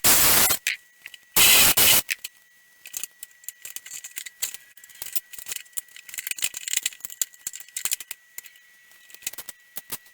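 Electric heater's steel casing and loose screws rattling and clinking while it is taken apart by hand. Two loud rattling scrapes come in the first two seconds, then a run of light, irregular clicks and rattles.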